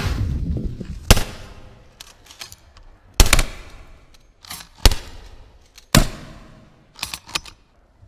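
12-gauge shotguns firing 3½-inch shells at geese overhead: four loud shots spaced a second or two apart, then two fainter shots in quick succession near the end.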